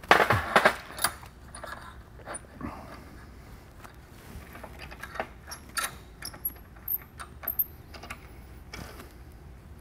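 Stainless steel pipe coupon and a steel screw clamp handled on a steel welding table: a few loud metal knocks in the first second, then scattered light metallic clinks and scrapes.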